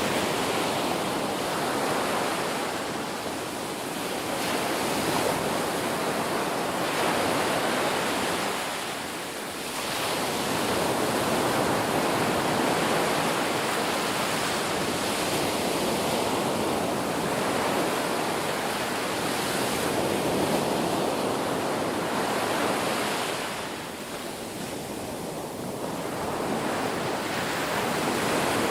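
Ocean surf washing onto a beach: a continuous rush of breaking waves that swells and eases, dropping back briefly a few times as one wave recedes before the next breaks.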